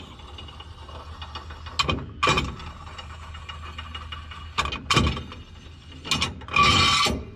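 Bungee installation tool being worked and spun off an aircraft landing-gear bungee fitting: irregular mechanical clicks and knocks, with a longer scraping rasp near the end.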